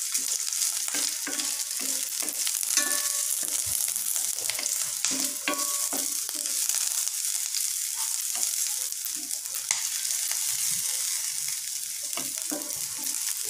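Garlic cloves, skins on, and sliced red onion sizzling in a little oil in a stainless steel pan, with a steady frying hiss. A wooden spatula stirring them scrapes and taps against the pan bottom again and again.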